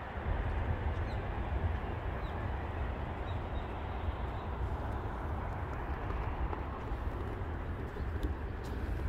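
Footsteps crunching through snow at walking pace, over a steady low rumble, with a few faint bird chirps in the first half.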